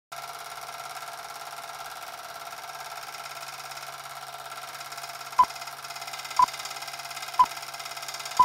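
Film projector running with a steady, fast mechanical clatter. From about halfway, a short beep sounds once a second with a film countdown leader.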